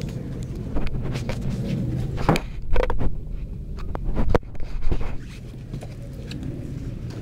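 Several knocks and thumps inside a small boat, over a steady low rumble.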